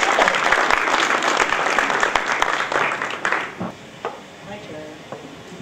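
Audience applauding, dying away about three and a half seconds in and leaving faint voices.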